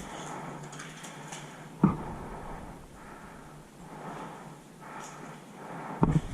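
Soft, uneven breathing and rustling of someone moving, broken by two sharp knocks: a loud one about two seconds in and another near the end.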